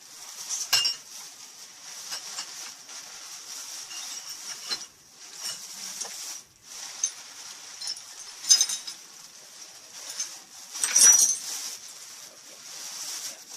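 Broken glassware and glass shards clinking as they are handled and sorted, a few sharp clinks, the loudest about eleven seconds in, over steady rustling.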